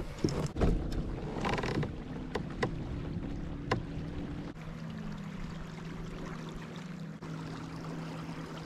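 Fishing kayak under way, with water moving past the hull and a little wind on the microphone. A few sharp clicks and knocks in the first four seconds, then a steady low hum from the kayak's drive sets in about halfway through.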